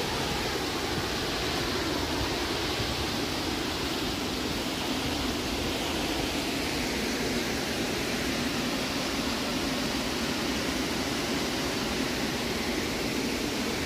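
Rushing water in a gorge: a steady, unbroken hiss.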